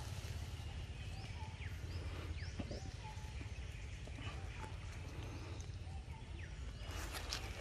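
Outdoor forest ambience: scattered short, high bird chirps over a steady low rumble, and near the end a burst of rustling in dry leaf litter.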